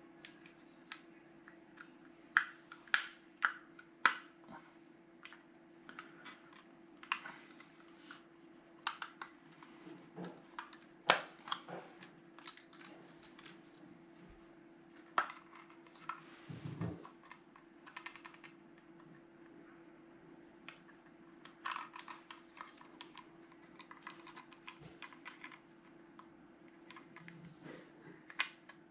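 Irregular sharp clicks and taps from small hard plastic parts being handled, some loud, some faint, over a faint steady hum.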